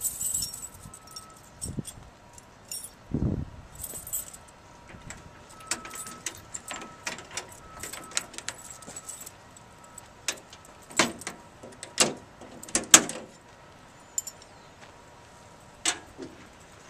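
A ring of keys jangling while a lock and latch at the rear of a school bus are worked, giving a string of sharp metal clicks and clanks. The loudest come in a quick cluster past the middle as the rear hatch door is freed and swung open.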